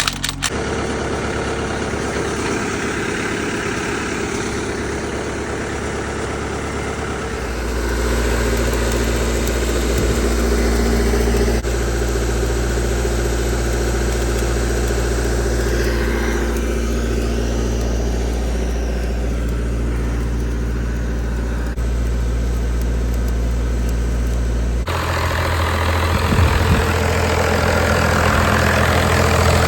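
An engine running steadily at idle, heard in several short clips that change suddenly from one to the next.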